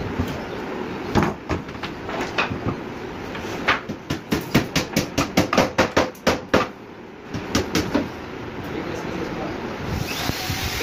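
Hammer tapping a board panel held in bar clamps, knocking the glued joint into line. A few scattered knocks, then a quick run of about a dozen taps at roughly four a second, then two or three more.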